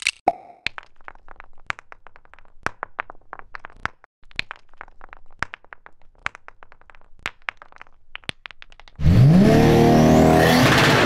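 Irregular small clicks and clacks for about nine seconds. Near the end a car engine cuts in loudly and revs, its pitch rising.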